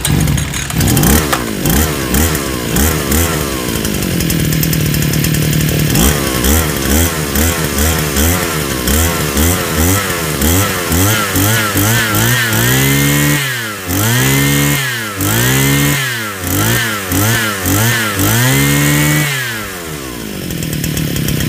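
BMC 430 42cc two-stroke brush cutter engine running just after starting, its pitch wavering at first, then steadier. In the second half the throttle is blipped about six times, each rev rising and falling over about a second, before the engine drops back near the end. The engine is set slightly rich from the factory, so its high-speed fuel screw needs adjusting.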